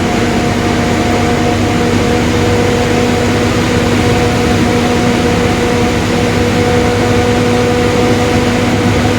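Mercedes-Benz OF-1721 Bluetec 5 bus running at a steady cruise, heard on board: diesel engine and road noise with a steady whine from the differential, the growling differential the bus is known for.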